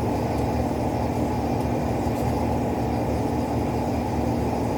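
A steady low mechanical drone with a constant hum, holding level throughout.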